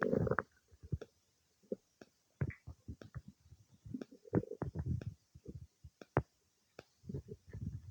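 Human stomach and intestines gurgling while digesting a meal: irregular short gurgles and pops, with longer rumbles about half a second in and around four to five seconds in, and a denser stretch of rumbling near the end.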